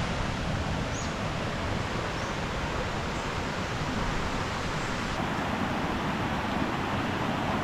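Steady rushing of a forest stream, even and unbroken, with a few faint high bird chirps over it.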